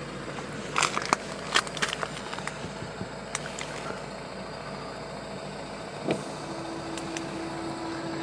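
Thin clear plastic food tray crinkling and clicking as a hand handles it, a handful of sharp crackles in the first two seconds, over a steady background rumble. A steady hum note comes in about six and a half seconds in.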